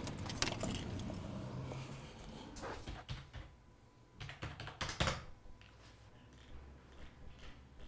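A low hum with a few clicks at first, then typing on a computer keyboard: irregular key clicks, with a few louder clicks about five seconds in.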